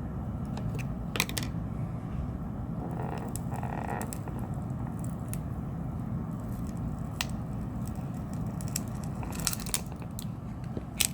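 Small clicks and scrapes of repair tools working a glued part out of a smartphone, after its adhesive pull tab has snapped off, over a steady low hum.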